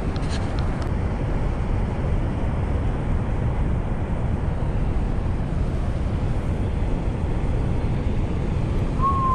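Steady low rumbling noise with no words, with a few light handling clicks under a second in and a short clear tone, falling slightly in pitch, near the end.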